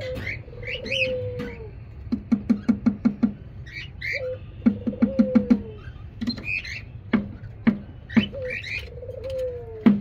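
Caged birds calling with short high chirps. A lower phrase repeats about every four to five seconds: a falling note, then a quick run of pulses.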